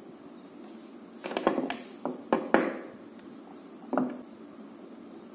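Small hard knocks and clicks of a cylindrical battery cell and a metal flashlight body being handled and set down on a wooden table: a quick cluster of about six between one and three seconds in, then one more about four seconds in.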